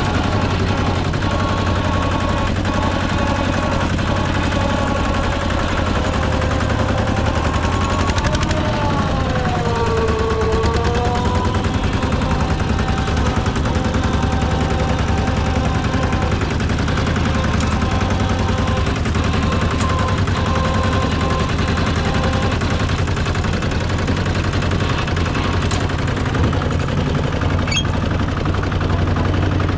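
Rice combine harvester's diesel engine running steadily under load with a rapid clatter. A whining tone over it dips in pitch about eight seconds in, then climbs back a few seconds later.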